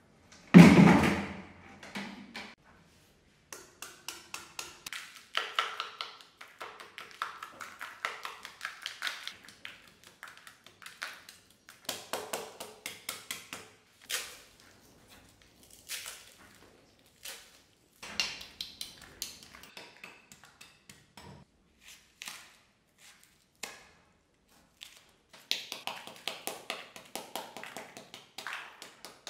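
A heavy thud about half a second in, then bursts of rapid light tapping and chipping on cast concrete. Near the end, a small hammer chips away concrete at the base of the stove to open its fuel hole.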